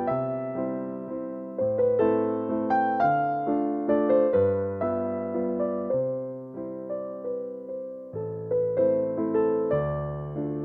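Soft background music on electric piano: gentle chords and a slow melody, each note struck and fading.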